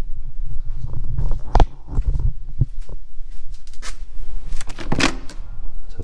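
Footsteps and knocks from walking up the entrance steps. About five seconds in comes a sharp metal click of the door handle and latch as a wooden front door is pushed open.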